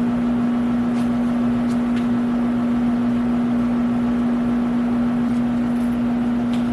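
A steady machine hum: one strong, constant low tone over an even rush of air noise, unchanging throughout.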